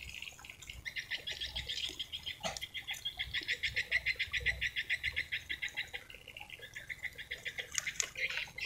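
Rapid, trilling chirps from a small animal calling: a fast, even run of high pulses for several seconds, which breaks off about six seconds in and resumes more faintly.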